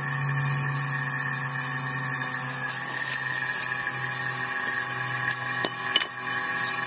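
Steady mechanical hum of several held tones over a high hiss, with a couple of sharp clicks about six seconds in.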